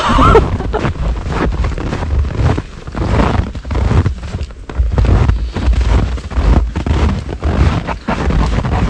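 Wind buffeting the microphone in heavy, gusting rumbles, over footsteps crunching down snow-covered steps at a walking pace.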